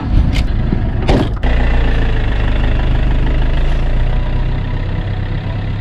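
Camper van engine started with the ignition key, then idling steadily.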